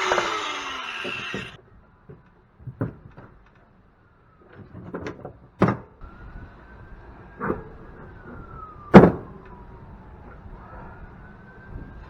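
A power tool winds down with a falling whine and stops, then metal parts knock and clank several times as they are worked loose and moved, the loudest clank about nine seconds in. A distant siren rises and falls faintly behind them.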